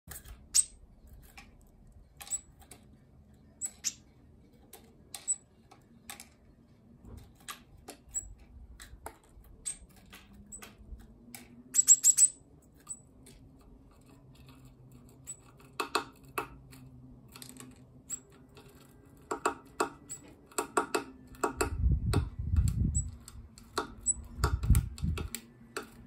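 Irregular sharp clicks and taps from a great tit handling sunflower seeds on a wooden feeder tray, the seed shells clicking as they are picked up and pecked. The clicks come one at a time at first, then in quick clusters, with heavier low taps on the tray near the end.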